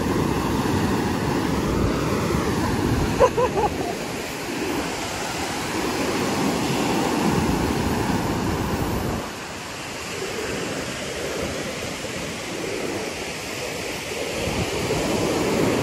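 Ocean surf breaking and washing up the beach, a steady rush that drops somewhat about nine seconds in.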